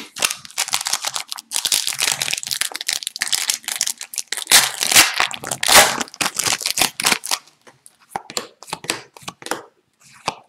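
Foil wrapper of a hockey card pack torn open and crinkled in the hands, a dense crackling rustle. Near the end it gives way to lighter, scattered rustles and ticks as the stack of cards is handled.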